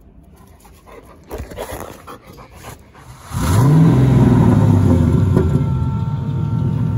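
Turbocharged LS V8 in a Chevy S10 pickup starting up: it catches about three seconds in, flares up in pitch for a moment, then settles into a steady idle. A dog is heard before the engine starts.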